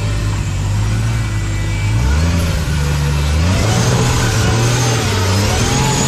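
Jeep Wrangler engine revving under load as it climbs a muddy, rutted track, its pitch rising about two seconds in and again a little later.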